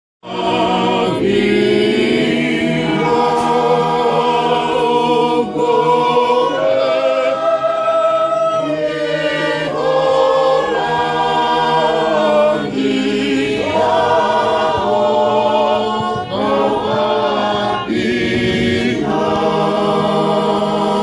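A small group of voices singing a hymn together, unaccompanied, in long held notes.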